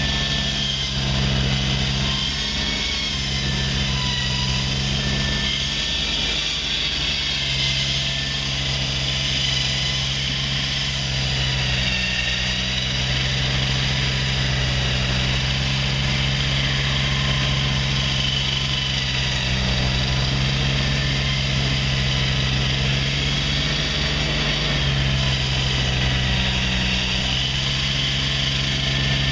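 Heavy construction machinery running steadily: a low engine hum that wavers slightly in pitch, with a high, wavering whine above it.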